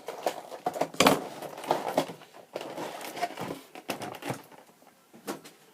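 Cardboard box and plastic packaging being handled, with irregular crinkling rustles and small knocks; the sharpest knock comes about a second in.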